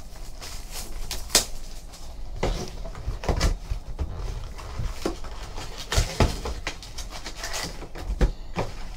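Plastic shrink wrap crinkling and tearing off a cardboard trading-card hobby box, then the box lid flipped open and foil card packs handled, in irregular crackles and light knocks.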